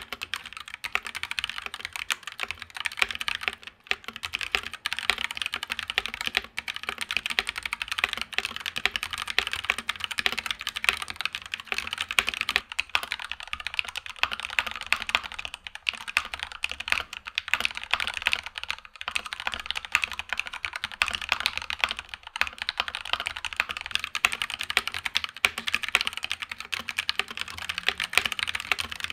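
Fast continuous typing on a custom Voyager 65 mechanical keyboard with linear switches that have been hand-lubed with Krytox: a steady stream of closely packed keystrokes.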